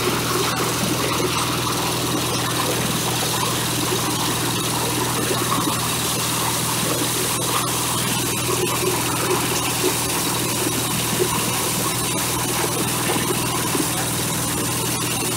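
Small stationary diesel engine running steadily as it drives a corn husker-sheller threshing husk-on ears, a constant hum with frequent clicks and rattles throughout.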